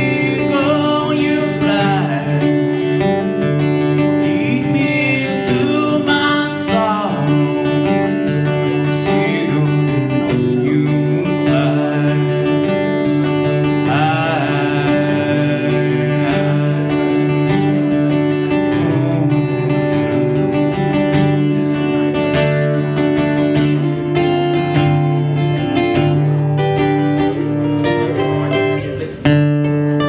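A cutaway steel-string acoustic guitar plays steady sustained chords live through a PA. A man's voice sings a few long, sliding phrases over it.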